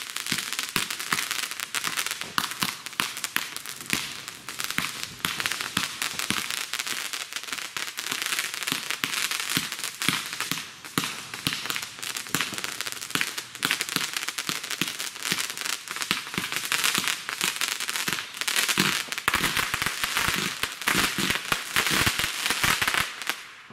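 World Class Fireworks Motor Mouth, a 96-shot 200-gram fireworks cake, firing shot after shot in rapid succession over a dense, continuous crackle.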